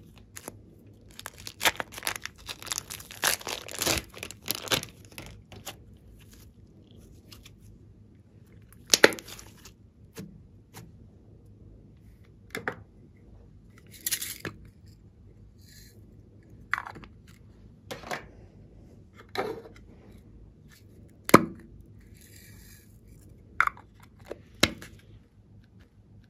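Plastic piping bag crinkling and crackling as it is squeezed, in a dense run over the first few seconds. After that come single sharp plastic clicks and taps, one every second or two.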